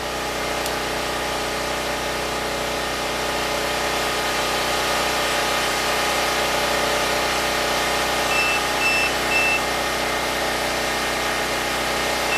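Predator 6500 generator's single-cylinder engine running steadily, growing louder over the first couple of seconds. Three short high beeps come in quick succession about eight seconds in, and one more near the end.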